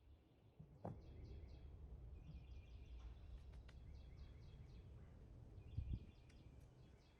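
Faint outdoor quiet with a bird singing in bouts of quick repeated trilled notes. There is a soft knock about a second in and a low thump near six seconds.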